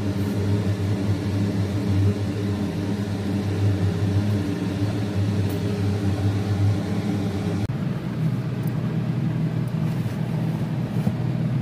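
A steady low mechanical hum, like a running appliance or fan, whose pitch and tone change suddenly about eight seconds in.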